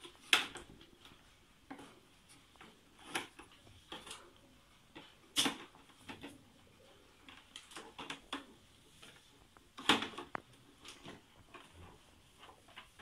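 Scattered sharp plastic clicks and knocks as filter cartridges and tubing are handled and pressed into the clips of a water purifier's plastic frame, the loudest just after the start and again about ten seconds in.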